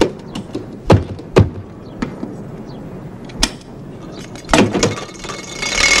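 Sound effects of a puppet climbing into a small vintage car: a series of sharp knocks and clunks, the loudest two about a second and a second and a half in.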